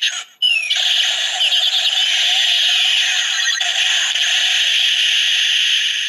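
DX Gamer Driver toy's small speaker playing the Dangerous Zombie Critical Strike finisher sound effects, triggered from the Kimewaza Slot Holder: a tinny electronic blast that starts with a falling swoop about half a second in and then runs on steadily.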